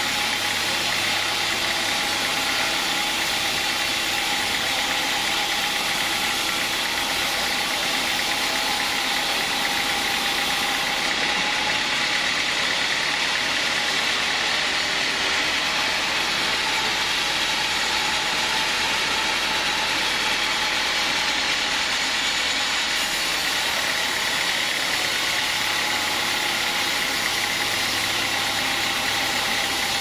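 Band sawmill running steadily, its blade cutting lengthwise through a large teak beam: a constant hissing whir with a steady high tone over it.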